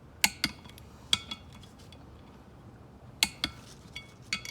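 Hand wrench working the bolts of a Weld Racing beadlock wheel: sharp, ringing metallic clicks, mostly in quick pairs, three or four times.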